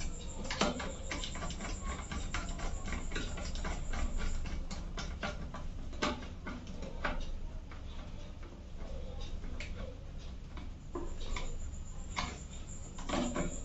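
Irregular small clicks and taps of hands fitting a wire into a single-pole MCB's screw terminal and handling the distribution box, over a low steady hum.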